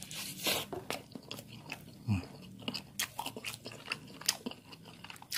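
Someone biting and chewing a toasted garlic-bread tuna sandwich, a run of irregular crisp crunches from the toasted crust. About two seconds in there is a short low hum that falls in pitch.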